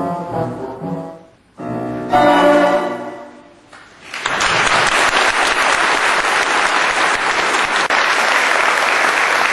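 A school orchestra of strings, woodwind and brass plays its closing bars, ending on a loud final chord about two seconds in that dies away. About four seconds in, the audience starts applauding, and the clapping holds steady and loud.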